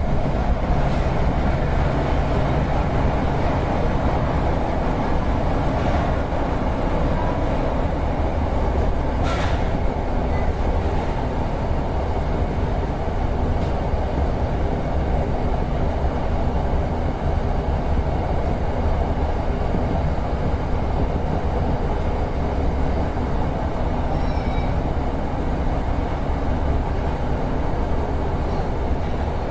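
Electric commuter train running through an underground tunnel, heard from the cab: a steady rumble of wheels on rails, with a sharp click about nine seconds in.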